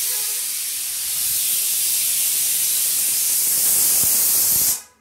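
Pressure cooker whistle: a loud, steady steam hiss that cuts off suddenly near the end.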